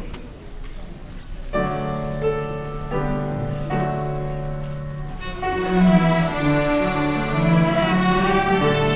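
School orchestra, mainly bowed strings, starts playing about a second and a half in with long held chords. More parts join about five seconds in, and the music grows fuller and louder.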